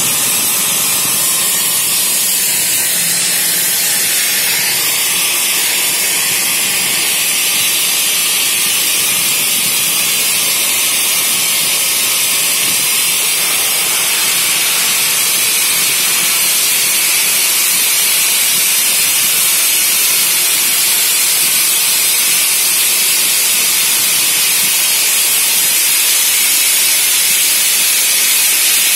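Gas torch flame burning with a steady loud hiss while it heats a spinning glass tube on a glassworking lathe.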